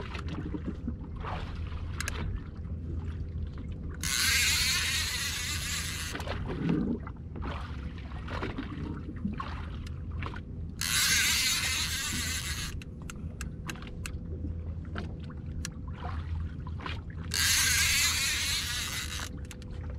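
Fishing boat's motor running with a steady low hum, under scattered sharp clicks and three hissing bursts of about two seconds each.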